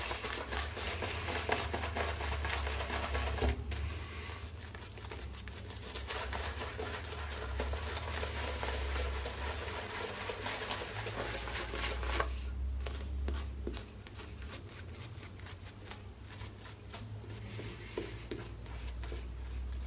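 Shaving brush working a wet shaving-soap lather on the face, a continuous soft squishing and crackling, quieter for a while after about twelve seconds. A low steady hum runs underneath.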